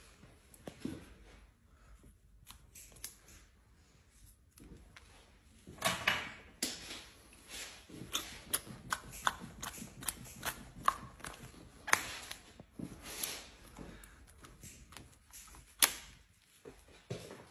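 A black peel-off face mask being pulled off the skin, making a run of irregular sticky crackles and snaps. They are sparse at first and come thicker from about six seconds in, with one sharp snap near the end.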